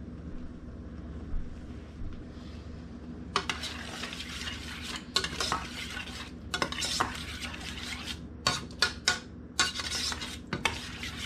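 Metal spoon stirring canned SpaghettiOs with meatballs in a stainless steel saucepan: irregular scrapes and clinks against the pan, starting about three seconds in, over a low steady hum.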